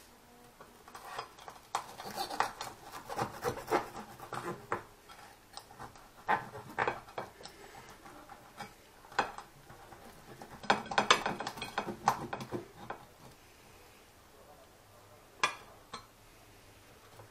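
Table knife and fork cutting through a roast goose on a ceramic plate: the blade saws, scrapes and clicks against the plate in irregular bursts, with the busiest stretch a little past the middle and one last scrape near the end.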